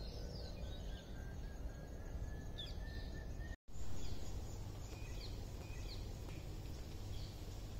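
Outdoor ambience: small birds chirping and calling over a steady low background rumble, with a long thin steady whistle in the first half. The sound cuts out for a split second about halfway through, then resumes.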